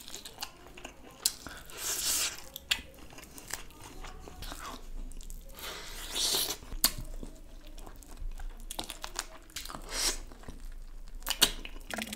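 A person biting and tearing meat off a chicken piece on the bone and chewing it, with irregular wet mouth clicks and smacks.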